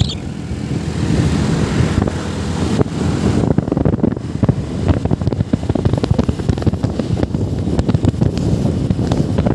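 Motorcycle engines running, mixed with wind rumbling on the microphone.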